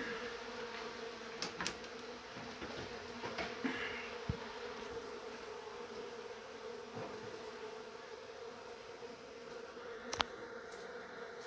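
Honeybees buzzing in a steady, even hum around opened hive frames. A few sharp knocks from the wooden frames being handled break in, the loudest near the end.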